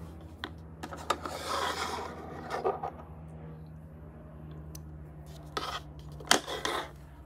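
Yarn and fingers rubbing and rustling against a crocheted square as the hook works close to the microphone, then a few sharp snips near the end: scissors cutting the yarn to fasten off after the final chain.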